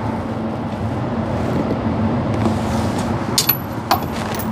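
Steady rumble of an indoor shooting range's ventilation, with two short sharp clicks about three and a half seconds in as something is handled on the shooting bench.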